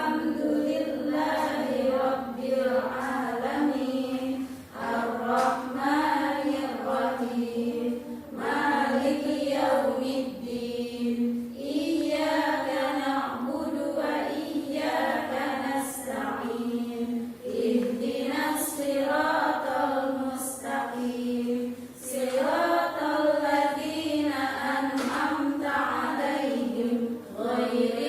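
Voices singing a simple song together in unison, in phrases a few seconds long with short breaks between them.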